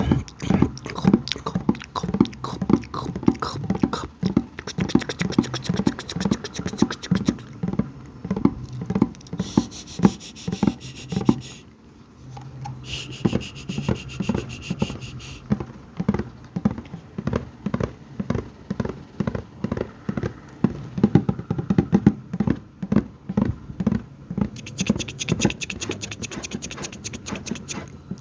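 Close-up ASMR mouth and bucket sounds: a quick run of clicks and taps, about four or five a second, easing off briefly about twelve seconds in.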